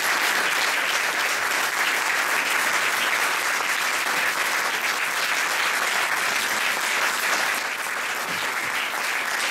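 Audience applauding steadily, the many claps merging into one dense patter that eases slightly near the end.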